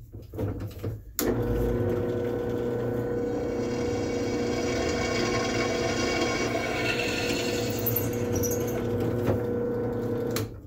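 Benchtop drill press switched on about a second in, its motor running with a steady hum while the bit drills a hole through a small clamped piece of steel, then switched off shortly before the end.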